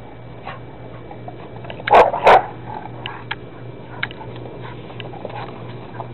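A dog giving two quick play barks about two seconds in, while wrestling another dog over a soccer ball, with faint clicks around them.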